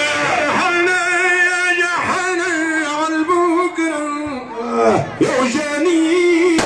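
A man singing a folk song in long, wavering held notes, with short breaks about two and five seconds in.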